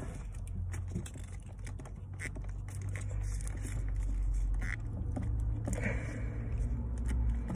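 Small plastic clicks and a couple of short squeaks as a black plastic wiring-harness connector is wiggled and pulled apart by hand, with its locking tab already released, over a steady low hum.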